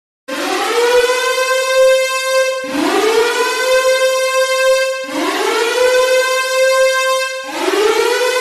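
Siren sound effect: a wail that rises in pitch and then holds, repeated about every two and a half seconds, four times.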